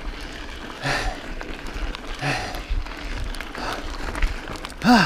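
Mountain biker breathing hard, with two loud exhalations about one and two seconds in, over the steady rattle and crunch of the bike's tyres on loose gravel trail; near the end comes a short vocal grunt, the loudest sound. The heavy breathing is from over-exertion: she went too hard at the start.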